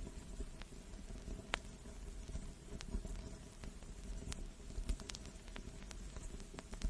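Vinyl record surface noise: a steady faint hiss and low rumble with irregular crackles and sharp pops, the loudest pop about a second and a half in.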